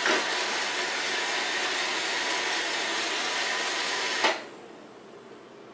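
iRobot Roomba 690 robot vacuum running with a steady hiss, then cutting off suddenly about four seconds in as it is paused from the phone app.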